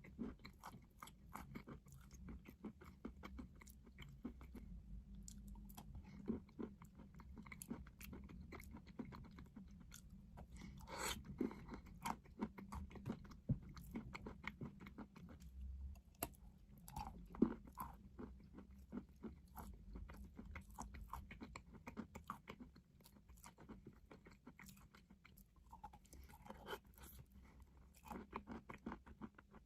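A person biting and chewing crunchy chalk close to the microphone: a steady run of small crackling crunches, with louder bites about eleven and seventeen seconds in.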